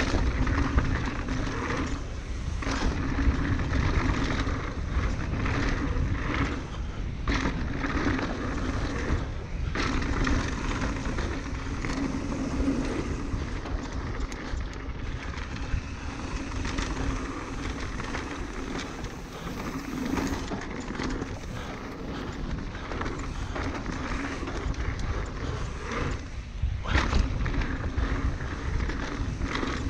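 Norco Range enduro mountain bike descending a dirt trail at speed: steady rolling tyre noise and wind on the microphone, broken by frequent sharp knocks and rattles from the bike over bumps.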